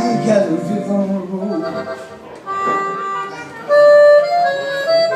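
Live blues band music with a free-reed instrument playing long held, slightly bending notes over the band; the lead grows loudest a little past halfway.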